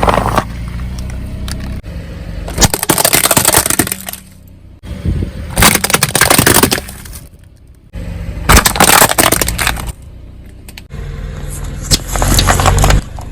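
A car tyre rolls over objects and crushes them, making loud cracking and breaking four times over the car's low engine hum.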